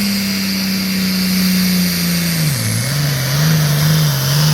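Diesel engine of an International Harvester hot farm class pulling tractor, running hard under load as it pulls the sled. Its pitch sags slowly, drops sharply about two and a half seconds in as the engine bogs, then comes back and wavers.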